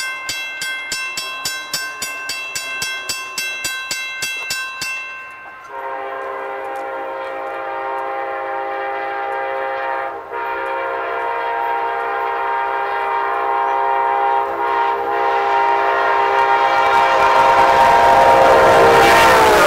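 Background music with a steady beat for about the first five seconds. Then an Amtrak Genesis diesel locomotive's air horn sounds a chord in long blasts with two brief breaks, growing louder as the train approaches. Near the end the horn's pitch drops as the locomotive passes, with the rush of the train.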